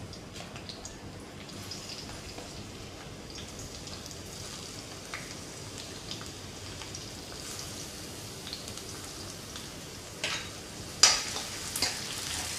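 Sliced onions sizzling steadily in hot oil in a wok. Near the end the frying flares up louder and more sharply as more onion is dropped into the pan.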